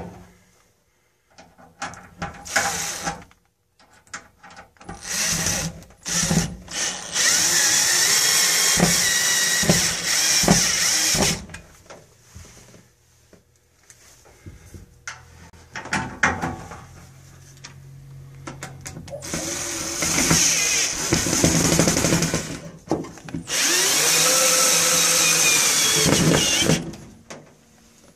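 Power drill driving screws through a sheet-metal heat shield into the wall, running in several spells of a few seconds each, with clicks and handling noises between.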